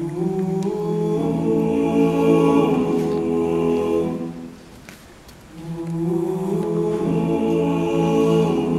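All-male a cappella group singing held chords in close harmony, with no instruments. Two sung phrases, with a short break a little after halfway, and a deep bass part entering about a second in.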